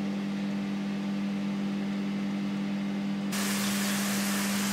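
A steady low hum, then about three seconds in the spray from a handheld shower head starts abruptly: an even, loud hiss of running water.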